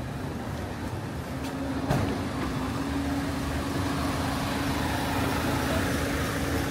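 City street traffic with a motor vehicle running close by, a steady hum that grows a little louder about two seconds in, and one sharp click around the same moment.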